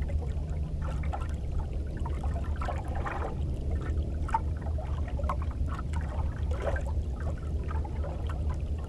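Water lapping and trickling against a small boat's hull in small, irregular splashes, over a low steady rumble.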